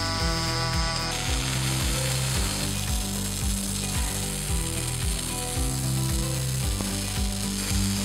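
MIG welding arc from a robot-held torch, crackling and sizzling steadily from about a second in, over background music with a steady bass beat.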